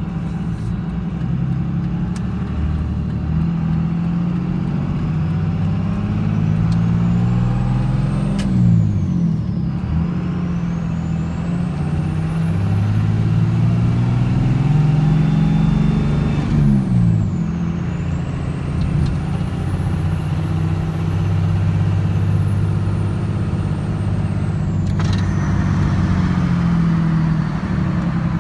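1999 24-valve Cummins 5.9 L inline-six diesel pulling under load with a loud, high turbocharger whistle, its compressor breathing through an open aFe Stage 2 cold air intake with the silencer ring removed. The whistle climbs in pitch as the engine revs rise, drops away sharply as the revs fall about a third and two thirds of the way in, then climbs again and eases off near the end.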